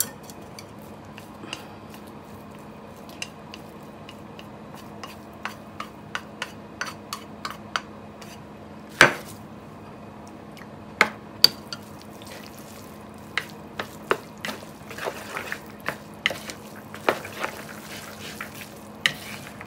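Boiled spaghetti being tossed with cod roe in a white plastic colander-bowl: scattered clicks and knocks of a utensil against the bowl, with a few louder knocks about nine and eleven seconds in and busier clicking toward the end. A steady low hum runs underneath.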